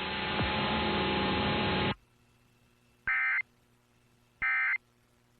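Emergency Alert System end-of-message data bursts heard over AM radio. About two seconds of loud radio hiss and hum cut off abruptly. Then come two short electronic bursts, each about a third of a second long and a little over a second apart, the coded signal that closes the alert.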